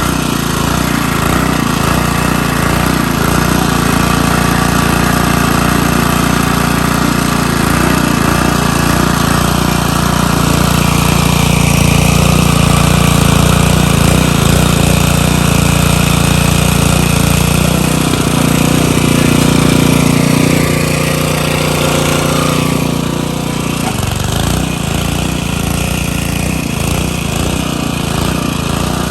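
Small gasoline engine running hard under varying load, with a rapid chugging beat underneath; its pitch shifts for a few seconds past the middle.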